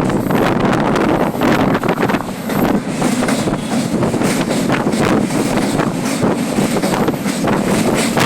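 Moving passenger train, with wind buffeting the microphone over the steady rumble of the coaches and irregular rattles and knocks.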